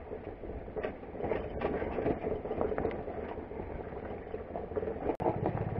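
Motorcycle engine running at low speed while the bike climbs a rough, stony dirt trail, with frequent small clicks and rattles from the bike and loose stones under the tyres.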